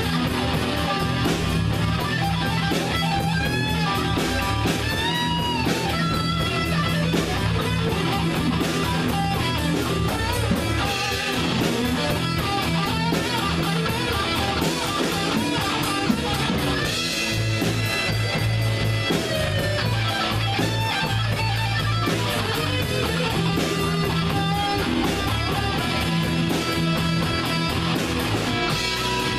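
Live rock band playing an instrumental passage: an electric guitar plays a lead line with bent notes over bass and a steady drum beat.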